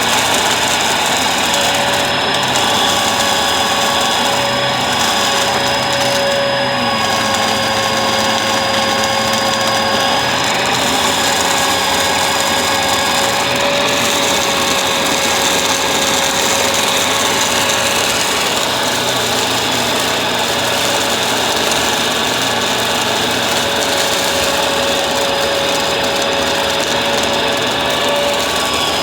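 Bissell vacuum cleaner running steadily, its motor giving a constant whine over a loud rush of air.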